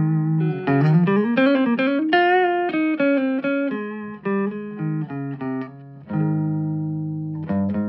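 Guitar played through a Fender Bronco amplifier: quick single-note lines with a slide up in pitch about a second in, then one note held for over a second near the end.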